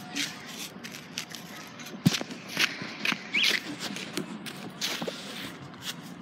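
Handling noise from a handheld phone being moved about: irregular scuffs, taps and rubbing on the microphone.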